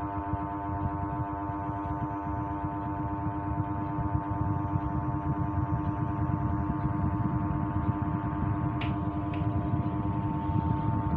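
Pedestal fan's AC motor running on a homemade speed controller: a steady electrical hum of several pitches over a low rush of air, growing slightly louder partway through. The hum is the known drawback of building the controller without the 500k potentiometer and 10k resistor.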